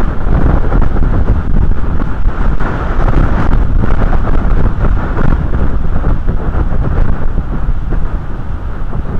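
Wind blowing across the outdoor nest camera's microphone: a loud, steady rush of wind noise, deepest in the low end.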